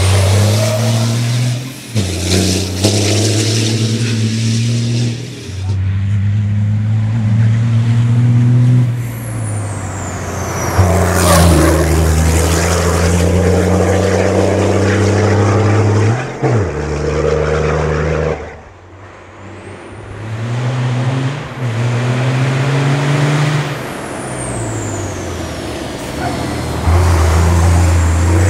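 MAN race truck's diesel engine pulling hard uphill. Its pitch climbs and then drops with each gear change, over and over, and high whistles sweep up and down. The engine goes quieter for a moment about two-thirds of the way through.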